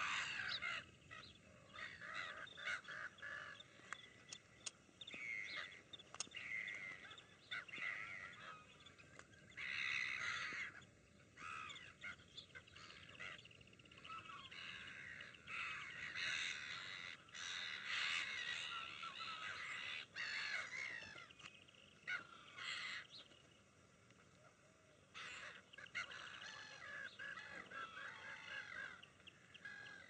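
A flock of gulls calling, with many harsh, overlapping calls that come and go, and a brief lull about three quarters of the way through.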